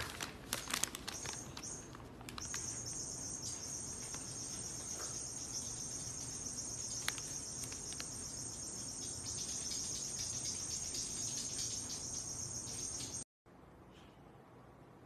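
A steady high-pitched insect-like chirring, like crickets, that holds unchanged for about ten seconds and stops abruptly near the end. In the first couple of seconds there is crackly rustling, like paper being handled.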